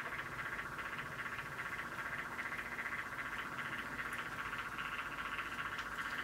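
Small electric cup-turner motor running, a steady, even buzzing whir as it slowly rotates a ceramic mug.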